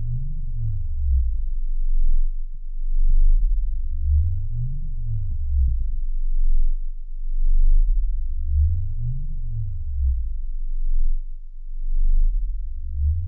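Deep electronic sine tones over a steady low hum. A pitch glides up and then back down about every four and a half seconds, three times and starting a fourth near the end, and the loudness swells with each glide.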